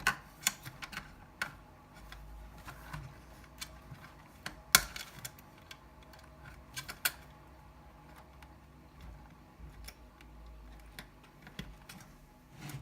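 Scattered small clicks and taps of parts being handled inside an opened desktop PC case, at the M.2 SSD and its small pull-out retaining plug, with one sharp click about five seconds in and another a couple of seconds later.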